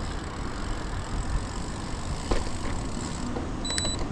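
Steady wind and road rumble on the microphone of a road bicycle rolling along a paved street, with a short, high electronic beep near the end.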